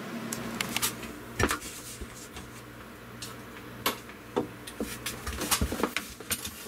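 Scattered clicks and knocks of objects being handled and set down, a few sharper knocks standing out, over a low steady hum.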